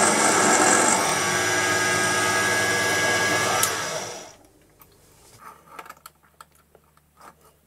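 Proxxon PD 250/e mini lathe running steadily while a twist drill finishes a hole in a leaded mild-steel bar. The motor is switched off about four seconds in and spins down quickly, leaving a few faint clicks of handling.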